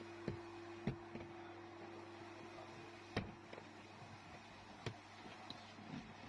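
A handful of sharp clicks and knocks as hands press on and work the plastic dashboard trim, the loudest about three seconds in, over a steady low hum.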